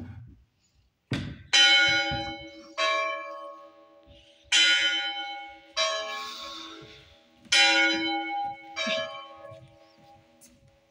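Church bell ringing: six strokes, struck two at a time with about three seconds between pairs, each stroke ringing on and slowly dying away.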